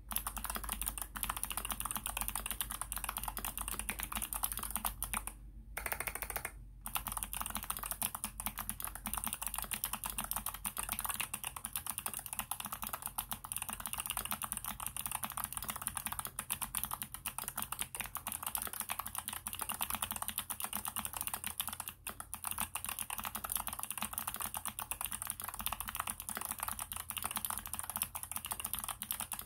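Mechanical keyboard with NovelKeys x Kailh Box Jade clicky switches being typed on continuously: a dense run of sharp clicks from the keypresses, with a brief break about six seconds in.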